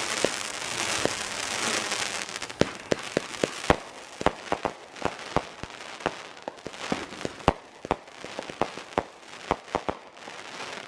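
Consumer fireworks going off: a dense crackling hiss for the first two seconds or so, then a long string of sharp, irregular pops and bangs.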